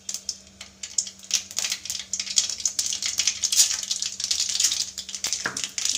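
Mustard seeds spluttering in hot cooking oil in a steel kadai: a dense, rapid crackle of small sharp pops that goes on without a break. Chana dal is tipped in partway through to fry in the same oil.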